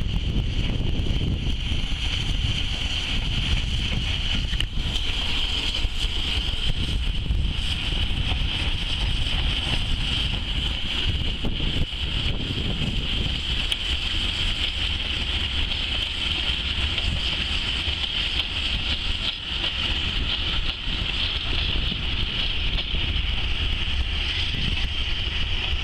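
Wind buffeting the microphone in a steady low rumble, over a steam-hauled passenger train running past at a distance. A steady high hiss sits over it.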